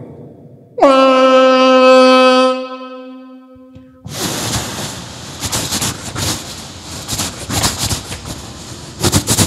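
A man imitating a train with his voice: a loud, steady horn blast begins suddenly about a second in and fades out after about three seconds, then gives way to a fast, uneven clatter like a train's wheels rattling across a bridge.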